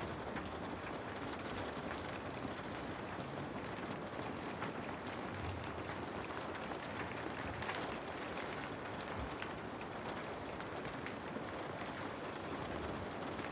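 Steady rain with a dense patter of fine drops, falling on a window.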